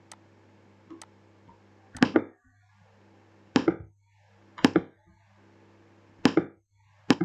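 Computer mouse clicks: two faint clicks, then five sharp, loud ones about a second or more apart, over a low steady hum.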